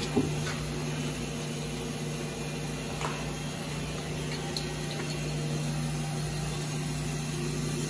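Steady low machinery hum with a constant low drone, and a few faint clicks and knocks on top.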